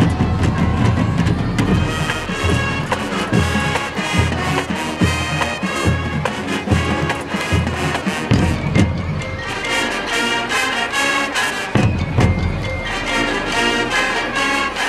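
High school marching band playing live: sustained brass chords over a steady beat of low drum hits, which drop out for a few seconds past the middle and return near the end.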